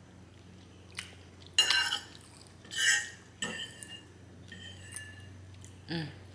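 Eating utensil clinking and scraping against a dish while scooping up the last of the spaghetti meat sauce: a few sharp ringing clinks in the first half, the loudest about two seconds in. A short voice sound comes near the end.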